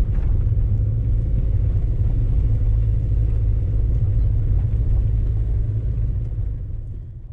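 Cabin noise of a Maruti Wagon R being driven: a steady low rumble of engine and tyres on the road, fading out near the end.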